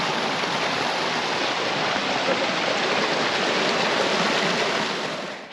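Running stream water rushing steadily, fading out near the end.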